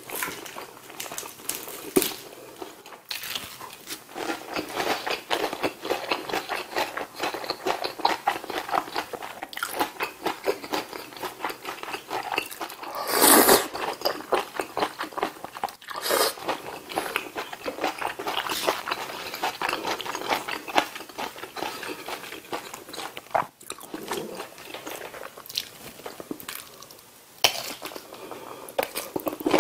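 Close-miked eating sounds: crunching and chewing of fried food with wet mouth clicks. About halfway through comes one loud slurp of ramen noodles, and near the end a bite into a large kielbasa sausage.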